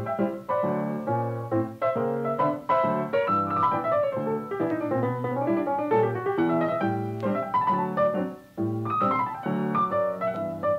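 Background piano music, a continuous run of notes with a brief break about eight and a half seconds in.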